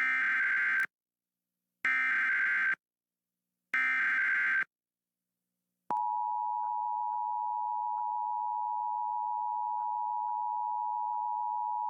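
Emergency Alert System SAME header: three short bursts of screechy digital data tones, each just under a second with about a second between them. About six seconds in, the steady EAS attention tone follows. This is the start of a relayed fire warning alert.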